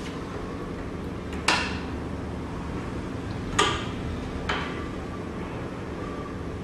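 Three sharp metallic clanks with a short ring, like hand tools knocking against metal: one about a second and a half in, a second, equally loud, about two seconds later, and a softer one just after it, over a steady low hum.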